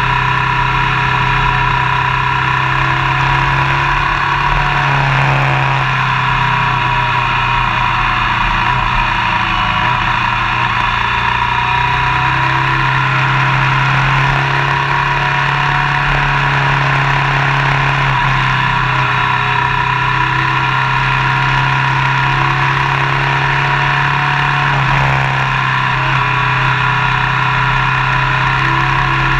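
Motorcycle engine running at steady road speed, its note rising and falling a few times, under heavy wind and tyre noise.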